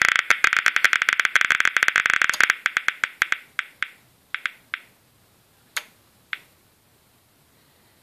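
Mini-Instruments Type 540 scintillation monitor's audio counter clicking, each click a count of detected radiation. The clicks come in a dense, fast stream for about two and a half seconds, then slow to scattered single clicks and stop about six seconds in.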